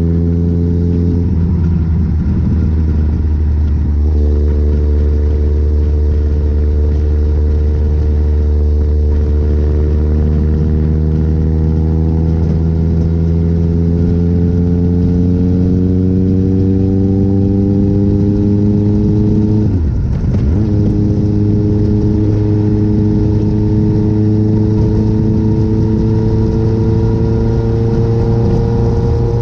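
Motorcycle engine pulling steadily at highway speed, its pitch climbing slowly, with a drop in pitch, as from an upshift, about a second in and again around twenty seconds in, over wind and road noise.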